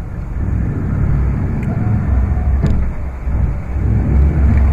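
Engine of a bogged four-wheel drive working under load, heard from inside the cabin, as it is driven in soft sand while it winches itself out. The low rumble grows louder towards the end.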